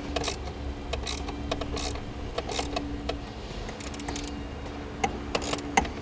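Ratchet wrench with a 5/16 socket clicking in short, irregular runs as a bracket bolt is loosened and backed out. A faint steady hum sits underneath.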